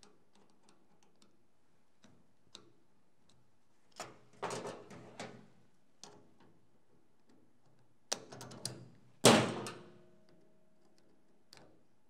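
Clicks and rattles of metal and plastic parts as a daisy wheel typewriter's carriage assembly is worked apart by hand, with bursts of clatter about four and eight seconds in. About nine seconds in comes one loud knock with a short metallic ring.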